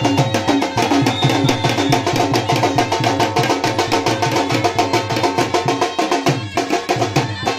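Folk dance music with a fast, even beat of drum strokes and sharp wooden clicks over steady held notes. The clicks fit the sticks the dancers strike in their stick dance.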